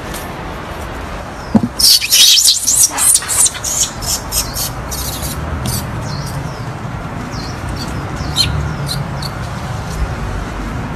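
High-pitched animal chirps and squeaks: a loud rapid flurry about two seconds in, then scattered single chirps, over a steady outdoor background hiss.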